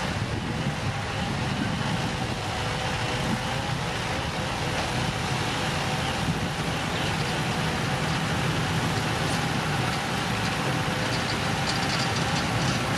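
Heavy construction machinery's diesel engine running steadily.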